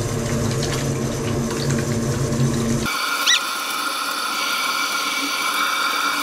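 Bath tap running into a filling bathtub, a steady rush of water. About three seconds in it cuts off abruptly to a thinner steady hum with a short whistle-like chirp.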